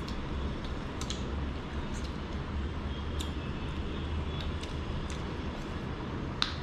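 Steady low hum of room noise with scattered small clicks and mouth smacks from two people eating rice and curry with their fingers off plates; one sharper click near the end.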